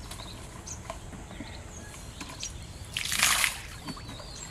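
A short splash of water about three seconds in, with a few faint bird chirps.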